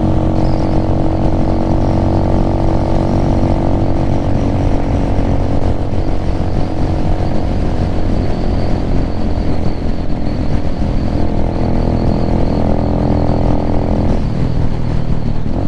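Venom Ghost Chopper 250 motorcycle engine running steadily at road speed, heard from on the bike along with wind and road noise; its note changes near the end.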